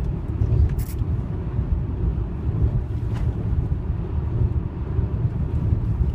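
Steady low road and tyre rumble inside the cabin of a 2008 Honda Accord at highway speed, with a couple of faint brief ticks and no clear squeaks from the interior trim.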